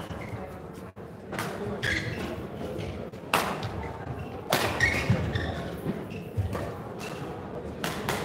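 A handful of sharp knocks and thuds, irregularly a second or two apart, echoing in a large sports hall, over a background of faint voices.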